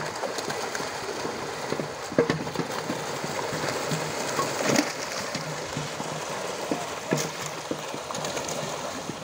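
Many fish thrashing at the surface, crowded inside a drawn net: a continuous spattering of water with sharper individual splashes every few seconds.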